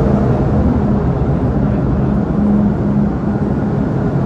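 Metro-Cammell M-Train electric multiple unit running past the platform: a loud, steady rumble of wheels and traction gear. A humming tone breaks in and out over the rumble.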